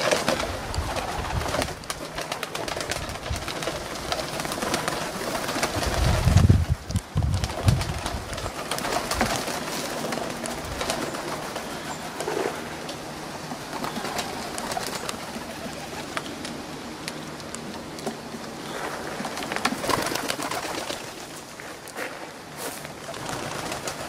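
A flock of doves and pigeons cooing, with many quick wing flaps and clatters as birds take off and land. A loud low buffet comes about six and a half seconds in.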